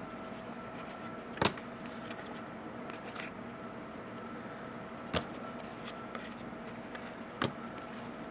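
Cardboard trading cards being handled and flipped through, with three short sharp clicks about one and a half, five and seven and a half seconds in, over a steady faint electrical hum.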